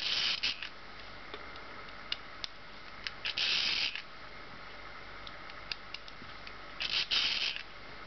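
Curta Type II mechanical calculator being cranked: short whirring rasps of crank turns, one at the very start and two more about three and seven seconds in, with light single clicks of the mechanism between. Each turn is a subtraction in the odd-number square-root method.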